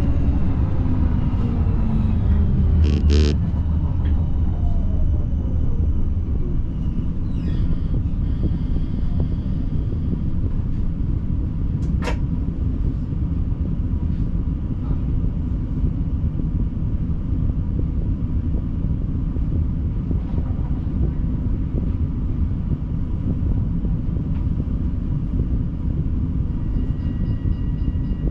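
Siemens Combino tram from the driver's cab: the motor whine falls in pitch as it brakes over the first few seconds, then a steady low rumble while it stands waiting at a signal. There is one sharp click about twelve seconds in, and a faint steady tone with quick ticking starts near the end.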